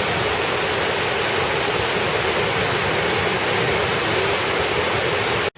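Waterfall pouring: a steady, even rush of falling water with no change throughout.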